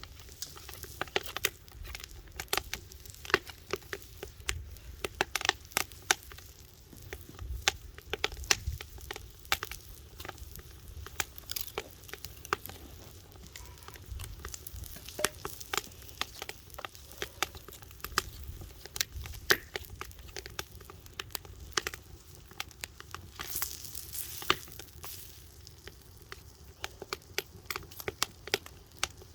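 Log firewood fire crackling, with frequent irregular sharp pops and snaps.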